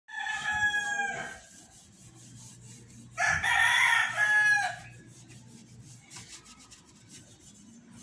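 A rooster crowing twice, each crow about a second and a half long, over the soft scratchy rubbing of an oily rag being wiped over a motorcycle's frame.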